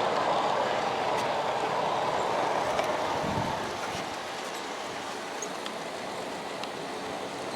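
G-scale model coal train rolling past on its track: a steady rumble of wheels on rails with a few faint clicks, fading about halfway through as the train moves away.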